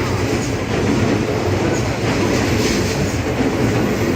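Odakyu Line electric train running on the rails at Yoyogi-Hachiman, a loud, steady rumble of wheels and running gear.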